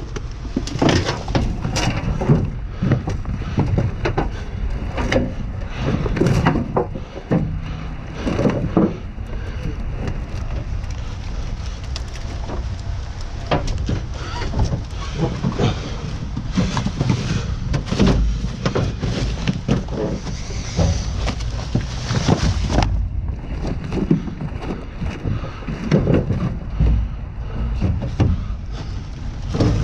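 Wind rumbling on the microphone, with frequent knocks and clatters of trash being shifted around in a dumpster.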